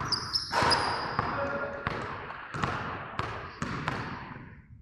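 Repeated sharp thumps with echoing tails, roughly one every half to two-thirds of a second, with brief high squeaks near the start.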